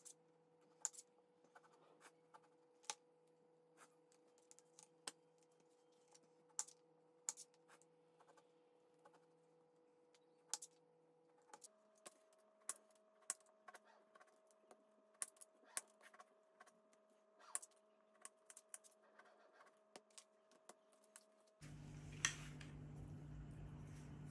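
A knife cutting limes on a plastic chopping board: faint, sharp, irregular clicks as the blade taps the board, one or two a second. Near the end the clicking gives way to a steady hum with a single tap.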